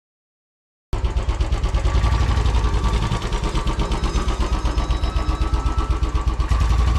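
Royal Enfield Classic motorcycle's single-cylinder engine idling with an even, quick thump, cutting in suddenly about a second in.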